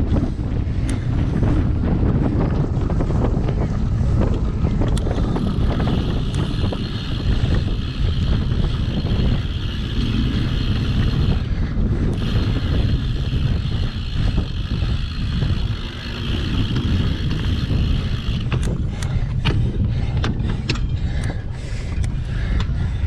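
Wind buffeting a GoPro action camera's microphone over the low rumble of a cyclocross bike riding over rough ground. A steady higher buzz runs through the middle, and scattered knocks and rattles come near the end.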